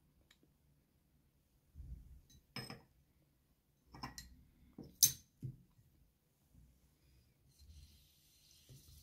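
Kitchenware handling: a metal spoon and small bowl clinking and knocking against a stainless steel pan, a few scattered clinks with the sharpest about five seconds in. Near the end a faint sizzle starts as a peeled zucchini strip goes into the oiled pan.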